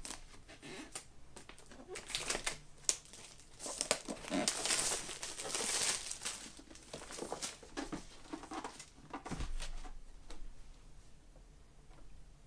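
Paper pull-tab strip being torn away along the side of an iPad Pro box, with the wrapping crinkling and rustling and scattered small clicks of handling. It is loudest about four to six seconds in.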